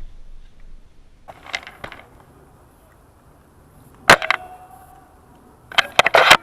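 Airsoft VSR10 bolt-action spring sniper rifle: soft clicks of the bolt, then a single shot about four seconds in with a brief metallic ring after it, and a quick run of sharp clacks near the end as the bolt is cycled again.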